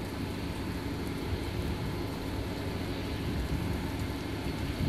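Thunderstorm ambience: a steady low rumble under an even hiss of rain.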